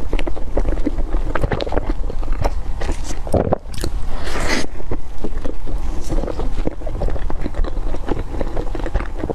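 Close-miked chewing of a soft cream-filled bread roll: many wet mouth clicks and smacks, with a louder rush of noise about four seconds in.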